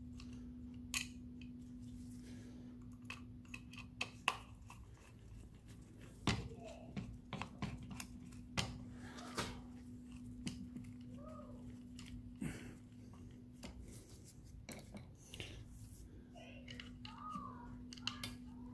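Screwdriver working the screws of a Ford 1.6 TDCi diesel fuel filter housing clamped in a steel vise: scattered small clicks and ticks of the tool and the plastic housing, over a steady low hum.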